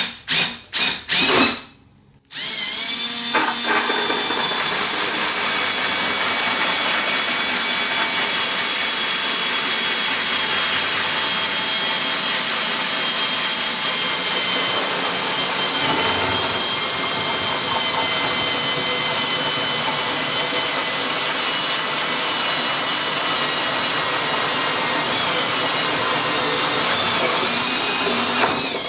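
Cordless drill with a hole saw cutting a drain hole through a shower pan. Four short bursts of the drill, then a steady run with a constant whine lasting about 26 seconds as the saw cuts through.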